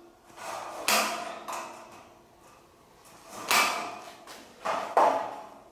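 Tin snips cutting the small corner tabs off a steel roof-truss channel: a handful of sharp metallic snips and clatters, with the steel member rattling as it is handled.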